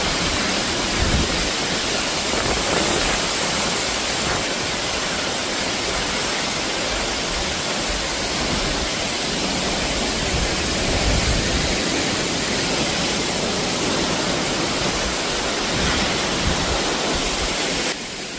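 Steady, loud rush of a large waterfall close by, with uneven low rumbling from spray and air buffeting the microphone. The sound drops away just before the end.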